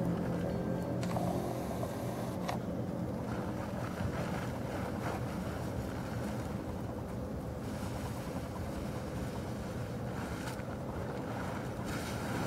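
A heavy tarp dragging and rustling over arena sand behind a walking horse, over a steady low rumble.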